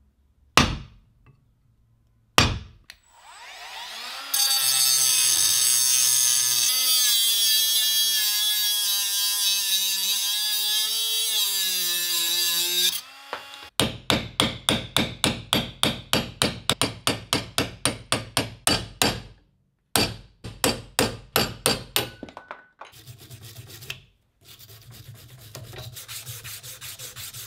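Hand work on a rusty cast-iron drill stand. A couple of sharp metal knocks come first, then a long wavering whine lasting about ten seconds. Quick rhythmic scraping strokes follow, about four a second, with softer rubbing near the end.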